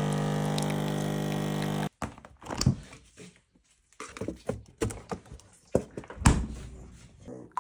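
Nespresso capsule machine's pump humming steadily while brewing, cutting off about two seconds in. Then a series of knocks and thunks as cartons are shifted on a fridge door shelf and one is pulled out.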